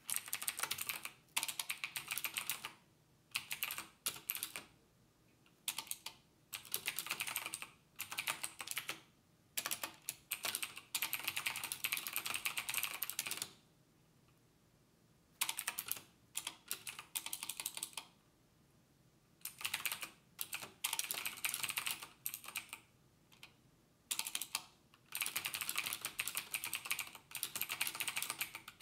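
Fast typing on a computer keyboard, in bursts of a few seconds split by short pauses, with two longer pauses around the middle.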